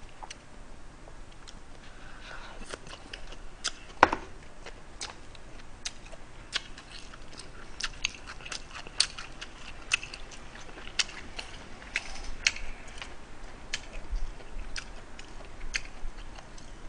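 Close-miked eating of a fried-chicken and rice meal: chewing and biting with irregular, sharp little clicks and crackles, and one louder click about four seconds in.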